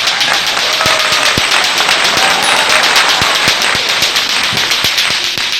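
Lato-lato clacker toy being swung: its two balls on a string knock together in a run of sharp clacks, about two to three a second and a little uneven, over a steady hiss.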